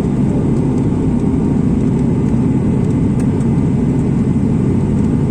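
Steady low rumble of a jet airliner's engines and airflow.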